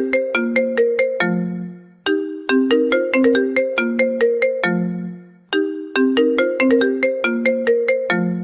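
A phone ringtone playing a short melody of quick, bell-like struck notes over a low held note. The phrase repeats about every three and a half seconds, with a brief drop-off before each repeat.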